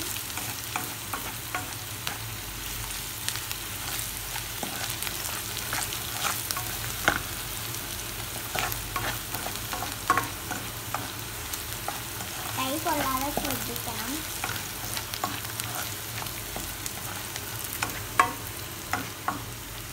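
Shallots, green chillies and curry leaves sizzling steadily in hot coconut oil in a nonstick pan while a spatula stirs them, knocking and scraping against the pan now and then.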